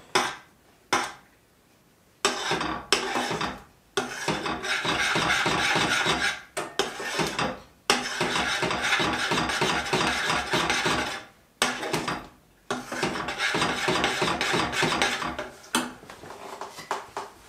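A metal spoon stirring thick milk pudding in a stainless steel saucepan, scraping rapidly against the pan's bottom and sides. It comes in stretches of a few seconds with short pauses between them, and gets quieter near the end.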